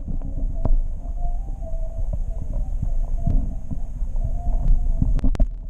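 Muffled low rumble and uneven throbbing heard through a camera submerged in an aquarium tank, with a faint wavering hum. Scattered sharp clicks and knocks come from the camera housing being moved in the water, several close together near the end.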